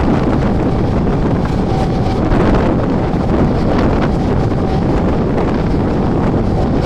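Mumbai suburban electric local train running at speed, its steady running noise overlaid by loud wind buffeting the microphone.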